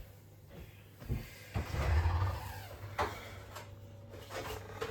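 Kitchen handling sounds while a baby's bottle is made: knocks and clicks of cupboard doors and items being set down. About a second and a half in there is a louder clatter that lasts about a second.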